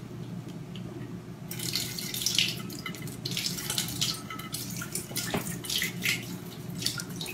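Water splashing in uneven spurts from the spigot of a crock water cooler into a glass dish below as a cat paws the tap open. It begins about one and a half seconds in.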